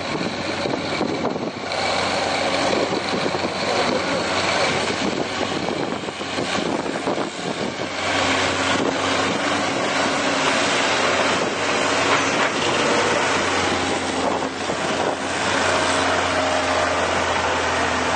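Diesel engine of heavy earthmoving machinery running under load, with occasional knocks. The machine is a wheeled excavator digging in broken rock. About eight seconds in, the engine becomes louder and steadier.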